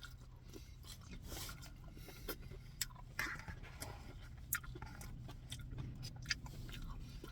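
A person chewing food close to the microphone, with short wet mouth clicks and smacks scattered through, over a steady low hum.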